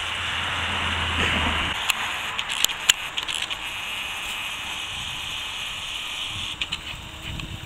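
Mountain bike rolling over a dirt trail: a steady hiss of the tyres on the dirt, with scattered sharp clicks and rattles from the bike.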